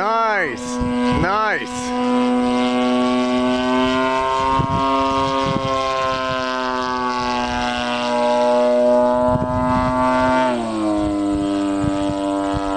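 The engine of a large radio-controlled model airplane droning steadily in flight, its propeller's pitch wavering twice near the start. About ten seconds in, the pitch drops as the throttle is eased back.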